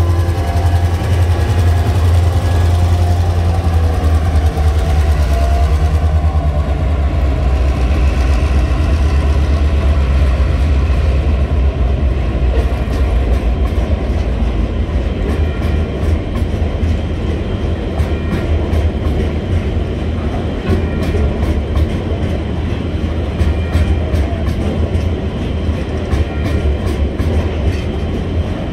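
TasRail diesel locomotive engine rumbling deeply as it hauls the coal train past. From about twelve seconds in, the engine fades and coal hopper wagons roll by, their wheels clicking steadily over the rail joints.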